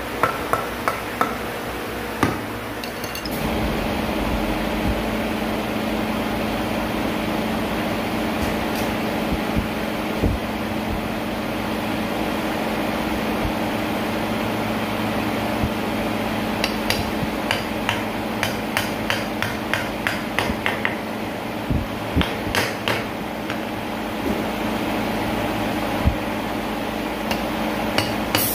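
Hammer striking wooden frame pieces to knock the joints together: a few knocks near the start, then quick runs of sharp knocks through the second half. Under them a steady machine hum starts about three seconds in.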